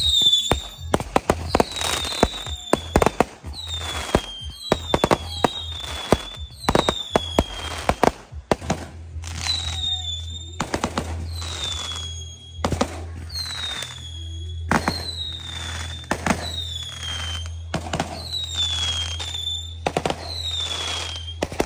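Music with a steady low bass throughout, overlaid by many irregular sharp cracks and bangs, each often followed by a short falling whistle.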